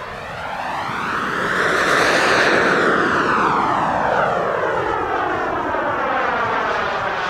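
Behotec 190 Gold model jet turbine of a large scale Aermacchi MB-339 flying past: the steady rushing jet noise swells to its loudest about two seconds in, then slowly fades as the aircraft moves away, with a sweeping, phasing quality as it passes.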